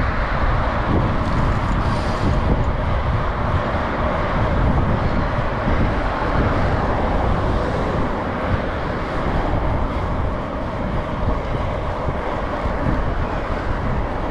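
Steady wind and road noise on a handlebar-mounted camera's microphone as a bicycle rides along a road, with passing motor traffic.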